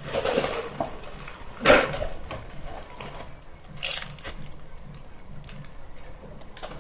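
Homemade squishy toys being handled and squeezed: soft crinkly rustling throughout, with a few louder rustles, about half a second, just under two seconds and about four seconds in.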